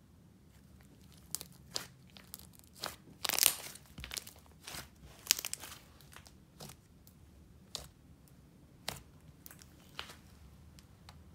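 Thick yellow icing-and-clay slime being stretched, folded and poked by hand, giving irregular sticky pops and crackles, the loudest cluster about three and a half seconds in.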